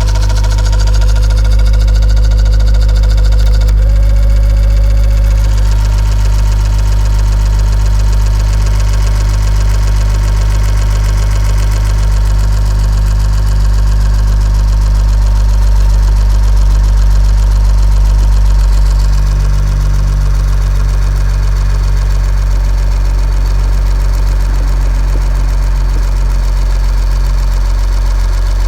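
Honda Odyssey RB1 idling, with the failed power-folding side-mirror motor whirring non-stop as a steady hum and whine. The motor keeps running the whole time the engine is on, and the mirror won't fold properly.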